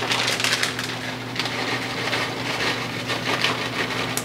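Plastic bag of shredded cheese crinkling and rustling as it is handled and shaken out into a saucepan, over a steady low hum.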